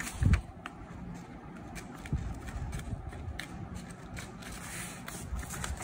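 A sheet of paper being folded over and creased by hand: rustling and small crackles of the paper, with a soft thump shortly after the start.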